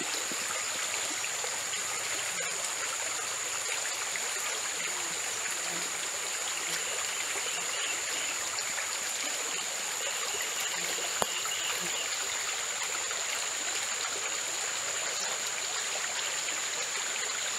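Shallow stream running steadily over rocks, with a steady high-pitched tone above it and a single sharp click about eleven seconds in.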